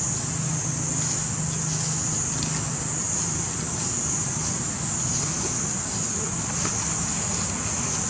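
Steady outdoor background noise: a constant high-pitched hiss over a low hum, with faint small rustles and no distinct sound events.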